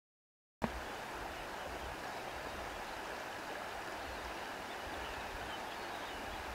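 Silence, then under a second in a steady rushing outdoor ambience starts suddenly and runs on evenly, a plain noise with a low fluttering rumble and no tune or voice.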